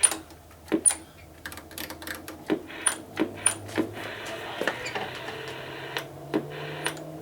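Sharp clicks at irregular intervals from a Realistic TRC-57 CB base station, which the owner takes for relays switching inside it. A faint hiss comes in about halfway through.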